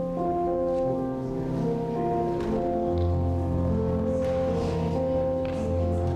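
Slow music played live on a digital keyboard: long held chords, with a low bass note coming in about three seconds in and sustained.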